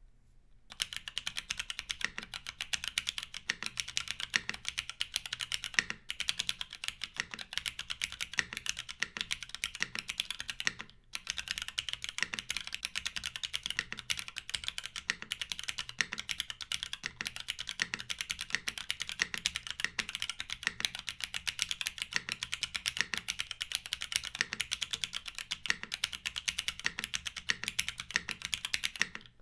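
Fast, continuous typing on a Constance TKL custom mechanical keyboard. It has Cherry MX Black linear switches, lubed with Krytox 205g0, fitted with 63.5g long springs and filmed, under GMK doubleshot keycaps. The keystrokes start about a second in, with one short pause partway through.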